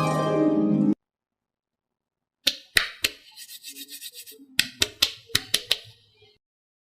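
A short burst of music cuts off about a second in. After a pause come about ten sharp clicks with soft crackling between them, the sound of slime-making materials being handled close to the microphone.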